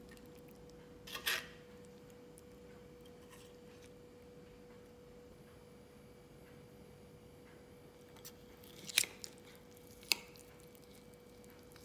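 Light clinks and scrapes of utensils: serving tongs against a cast-iron skillet about a second in, then a metal fork and spoon clinking on a ceramic plate a few times near the end. A faint steady hum sits under it.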